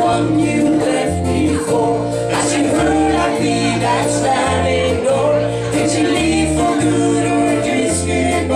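Live country band playing amplified: electric guitars, bass guitar and drum kit, the bass moving to a new note about every second.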